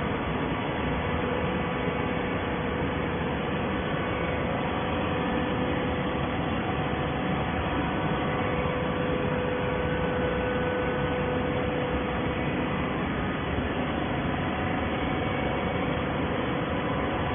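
Hydraulic baler's electric motor and pump running steadily: an even mechanical hum with a few held tones over a noisy rush, unchanging throughout.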